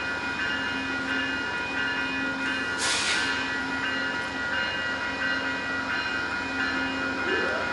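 Level-crossing warning bell ringing in a steady repeating pattern while the gates are down for an approaching passenger train, with a short hiss about three seconds in.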